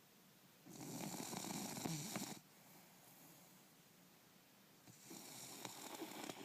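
Bulldog snoring in its sleep: two long, rasping snores about four seconds apart, with quiet breathing between them.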